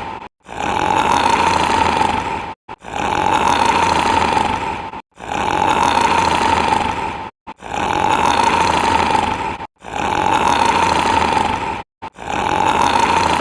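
Very loud, rough snoring: a string of long snores of about two seconds each, coming one after another with only a brief break between them, roughly every two and a half seconds.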